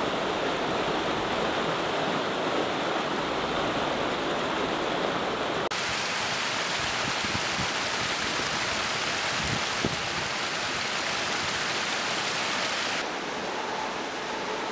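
Rushing water of a waterfall and icy mountain stream, a steady hiss that changes suddenly twice: brighter and fuller about six seconds in, then thinner and slightly quieter near the end.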